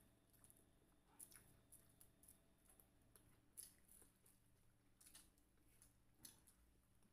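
Faint eating sounds: fried chicken with a crisp coating being chewed and bitten, with soft crackles and clicks scattered about once a second.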